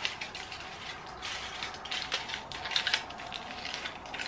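Aluminium foil strip crinkling and crackling in irregular rustles as it is folded and pinched closed around a section of hair.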